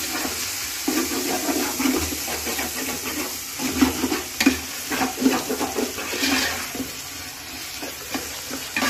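A metal ladle stirring and scraping chopped tomatoes frying in oil in a large metal pot, with a wet sizzling under it and a few sharp clinks of the ladle against the pot around four seconds in and near the end.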